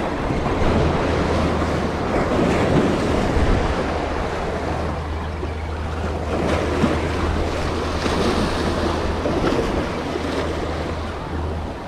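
Sea waves surging and breaking against the rocks of a jetty, a steady wash of surf, with wind buffeting the microphone underneath.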